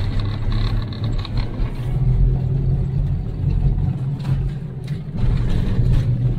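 Jeep fitted with snow tracks driving on a snowy road, heard from inside the cab: a low engine drone with track rumble, the hum rising in pitch about two seconds in, with a couple of light knocks near the end.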